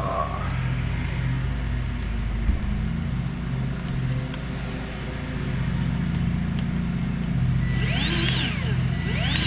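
Steady low machine hum, with two short whistling tones near the end, each rising and then falling.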